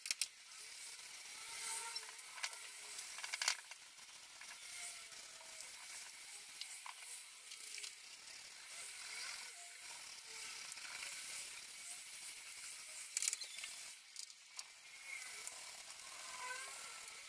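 Faint scratchy swishing of a paintbrush stroking furniture paint onto a wooden sideboard's front, with a few sharp clicks.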